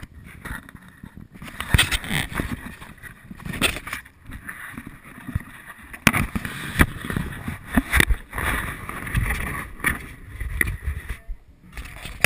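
Rustling and irregular knocks and clicks from a handheld or body-worn action camera rubbing against clothing as its wearer moves about, with no steady tone.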